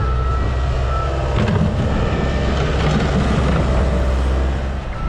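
Diesel engine of heavy equipment running steadily with a deep drone, while a reversing alarm beeps faintly at intervals.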